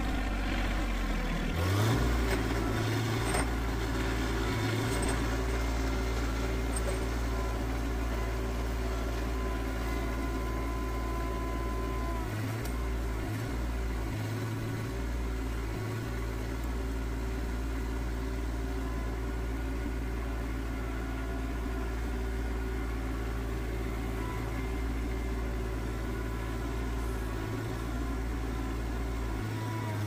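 Rural King RK25 compact tractor's engine running steadily while the front loader with pallet forks works at a big log; the engine picks up speed about two seconds in.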